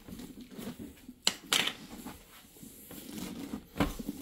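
A knife sawing through a pumpkin's rind to cut the lid free, making crunchy scraping and tearing noises. There is a sharp snap a little over a second in, a short rasp right after it, and another rasp near the end.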